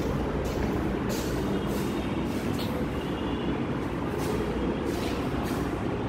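Steady low rumble of background noise, with faint ticks and rustles over it every half second or so.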